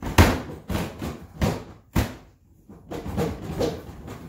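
Hard plastic Ryobi LINK tool box being pushed and knocked down onto the box beneath it: a run of sharp clunks about every half second, then a rougher clattering shuffle near the end. The box will not click into place, a fault the owner puts down to this one box.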